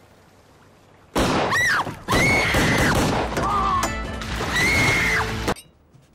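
Loud action-film soundtrack: dramatic music with bending, wavering high tones over dense crashing and banging hits. It comes in suddenly about a second in and cuts off abruptly near the end.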